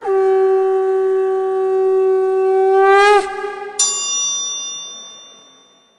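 Conch shell (shankha) blown in one long steady note that bends down in pitch and breaks off about three seconds in. Shortly after, a single metal bell strike rings out and fades.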